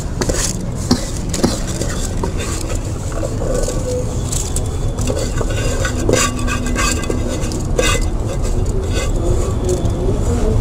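Steady low rumble of the stove's flame under a steel kadai of water and basmati rice coming back to the boil, with light bubbling. A couple of sharp clicks sound about a second in.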